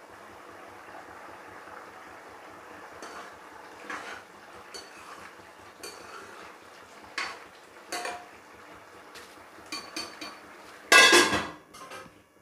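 Metal ladle scraping and clinking against a steel kadai as cooked rice is stirred, after a steady hiss in the first few seconds. A loud metallic clatter of pots and utensils comes near the end.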